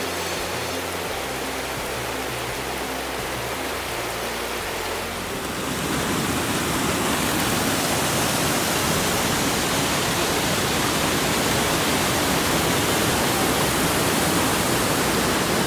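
Rushing water of a mountain stream tumbling over boulders, a steady roar that grows louder about six seconds in.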